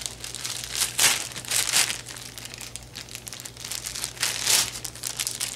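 Plastic packaging crinkling and rustling as it is handled and pulled apart, in irregular bursts, loudest about a second in and again near the end.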